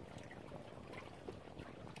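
Small waves of lake water lapping at the shore, a faint steady patter of little splashes and trickles.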